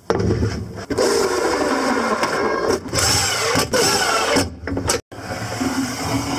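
Cordless driver running in several short runs with a wavering pitch and brief stops between them, driving screws that fasten a metal drawer slide to a plywood drawer.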